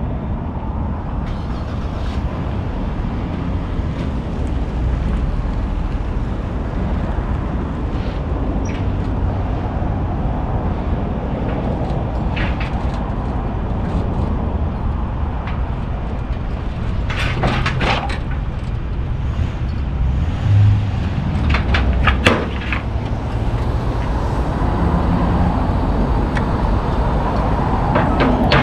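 Steady low engine rumble as a RAM pickup is driven down a car carrier trailer's steel deck and ramps, with a few sharp metal clanks about two-thirds of the way through and again a few seconds later.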